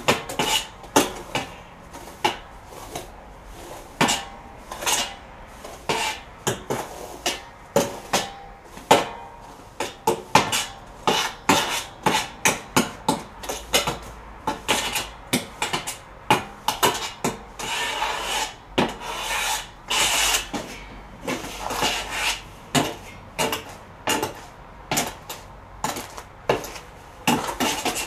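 Irregular scraping and knocking, several strokes a second, as a hand tool works against the inside of a steel oil barrel, with a few longer scrapes.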